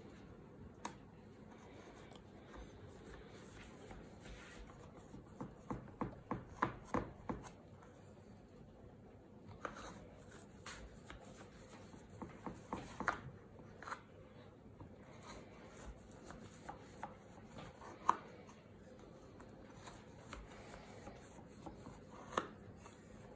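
Knife scoring through the crisp crust of a baked ma'moul madd slab in a metal baking pan: faint crunching and scraping with scattered light clicks as the blade meets the pan, and a quick run of about seven crunches around six seconds in.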